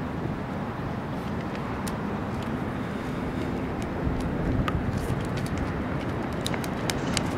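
Steady low outdoor rumble, with a few sharp clicks in the second half.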